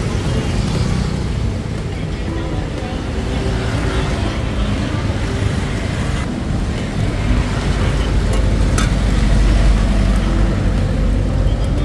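Street traffic noise: a steady low rumble of passing vehicles that swells about seven seconds in, with faint voices mixed in and a couple of light clicks.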